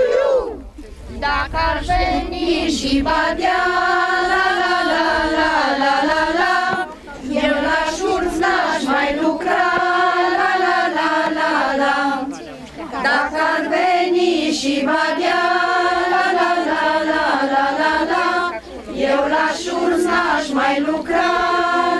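A group of women singing an unaccompanied folk song in long held phrases of about five or six seconds, with short breaks for breath about a second in and again near 7, 12 and 19 seconds.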